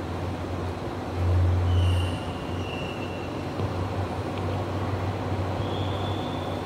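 Low, steady rumble of traffic with a hum underneath, swelling for about a second shortly after the start, with two faint high tones, one a couple of seconds in and one near the end.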